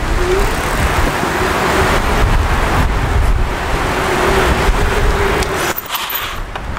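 A 350 W electric bike motor whining under throttle alone: a thin whine rises as it pulls away, then holds steady, under a loud steady rushing noise. Both cut off abruptly about six seconds in.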